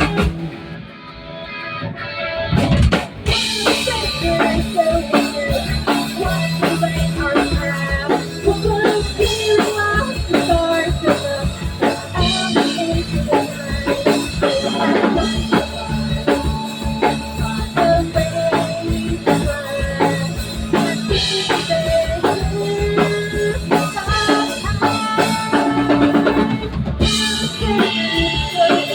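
Background music: a band track with drum kit and guitar, which opens quietly and comes in full with a steady beat about three seconds in.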